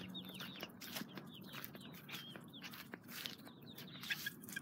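Young chicks peeping, many short down-curving peeps a second, with scattered clicks and rustles.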